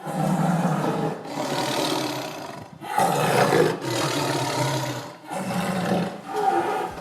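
Tiger roaring and growling in a run of about six rough roars, one after another with brief breaks between them.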